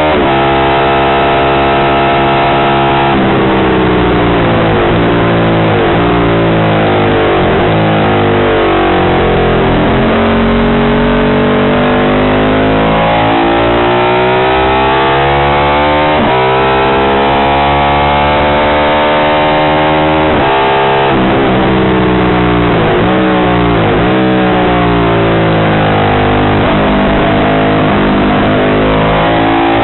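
Short-stroke Ducati 750 Imola racing motorcycle's bevel-drive 90-degree V-twin at full race pace, revs climbing hard and dropping sharply at each upshift, falling off under braking with quick throttle blips on the downshifts, then pulling hard again.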